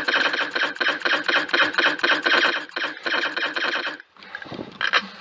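Airsoft rifle firing long full-auto bursts: a rapid, even rattle of shots that breaks off about four seconds in, followed by one short burst near the end.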